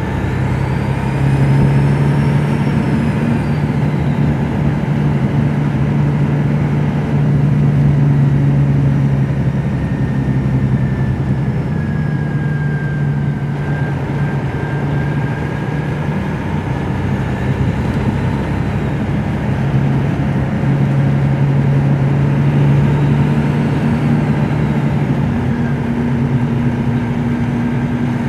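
2002 MCI D4000 transit coach's Detroit Diesel Series 60 engine running under way, heard from the rear of the bus. Its steady drone swells and eases in stretches, with faint high whines rising and falling a few times.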